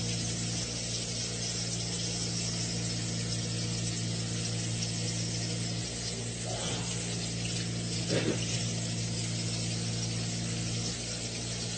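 Steady low hum with an even hiss, with two brief faint sounds about six and a half and eight seconds in.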